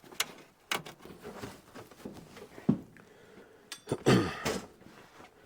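A handful of irregular sharp taps and knocks, then a longer scraping rattle about four seconds in: aluminum flashing being handled and tacked down.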